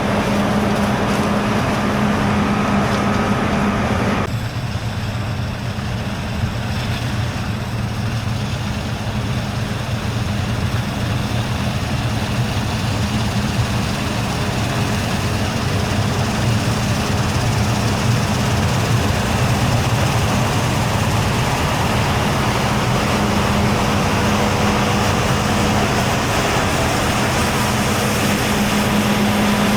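Heavy diesel farm machinery running steadily with a deep engine hum. The sound changes abruptly about four seconds in.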